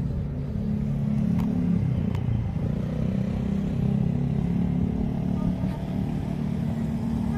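An engine running steadily with a low rumble, with two light clicks about one and a half and two seconds in.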